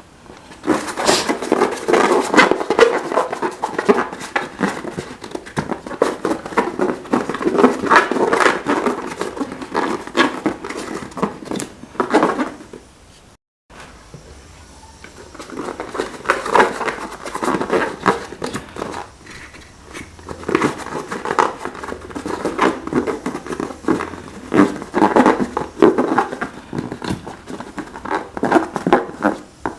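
Slime being squeezed and worked by hand, with dense wet clicking and crackling squelches. It breaks off at a sudden cut about halfway through and starts again.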